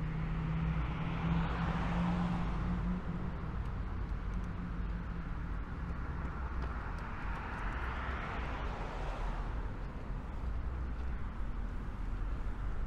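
Road traffic going past: two vehicles pass, one about two seconds in and another about eight seconds in, each swelling and fading over a steady low rumble.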